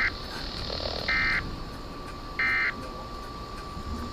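SAME digital alert-data bursts from a weather radio broadcast: short two-tone warbling bursts about 1.3 s apart, one just ending at the start and two more after it. The bursts are short enough to be the end-of-message code rather than a full alert header.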